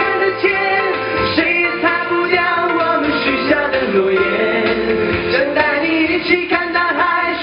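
Male pop vocal group singing live into handheld microphones over instrumental backing music.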